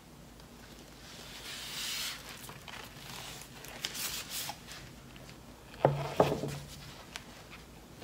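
A wet stretched canvas being handled and tilted over a padded table: a soft rustle, a few light clicks, then two sharp knocks about a third of a second apart, the loudest part, as the canvas is bumped or set down, with a brief low hum after them.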